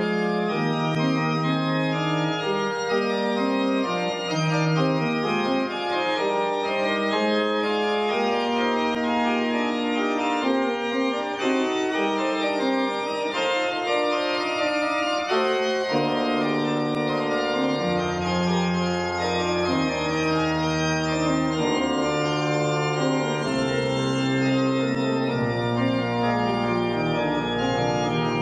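Organ playing slow, sustained chords over held bass notes, the closing voluntary after the dismissal.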